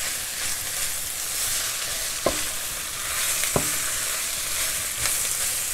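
Ground sweet Italian sausage, chopped fennel and onion sizzling in a hot frying pan as they are stirred and broken up with a spatula, with two light knocks around the middle.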